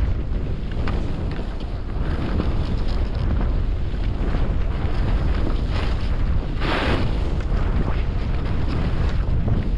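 Wind buffeting an action camera's microphone as a skier descends, a steady low rumble, with skis scraping and hissing over chopped-up snow. One louder hiss comes about seven seconds in.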